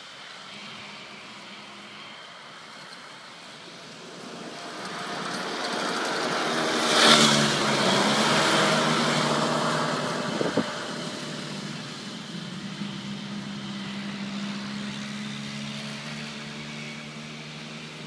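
Several go-kart engines buzzing as a group of karts comes closer, passes close by about seven seconds in with a drop in pitch, and then fades away into the distance.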